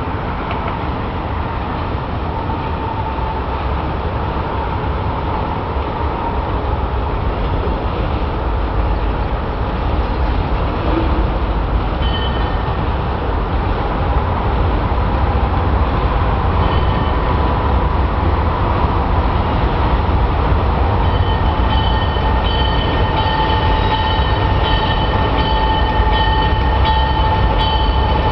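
Diesel locomotive drawing a passenger train in toward the platform, its rumble growing steadily louder as it nears. High ringing tones come and go from about halfway through and repeat regularly near the end.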